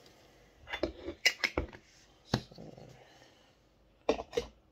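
Sharp knocks and clicks of a Funko Soda collectible can being handled and set down on a wooden table: a quick run of them in the first two and a half seconds, then two more near the end.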